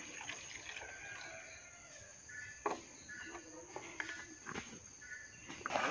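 Faint, steady high-pitched drone of insects, with a few short faint chirps and a few light clicks as a plastic pesticide bottle and its cap are handled.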